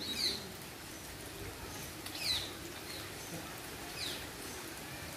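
A bird calling: three short, falling calls about two seconds apart, over a faint steady outdoor hiss.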